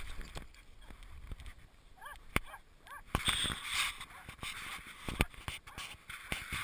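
Clothing rustle and snow crunching from the person wearing the camera as they throw a stick, with a few short high-pitched calls about two seconds in; the crunching and rustling grow louder from about three seconds.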